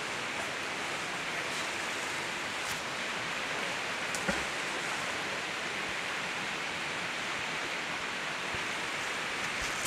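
Steady rushing of a flowing river, with one brief faint knock about four seconds in.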